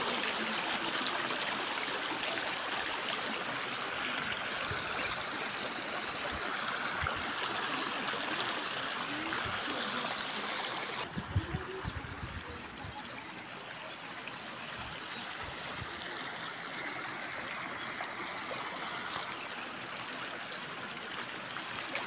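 Shallow stream running over stones and gravel, a steady rushing ripple of water. A little past halfway there is a brief low knock, and the sound turns slightly quieter and duller.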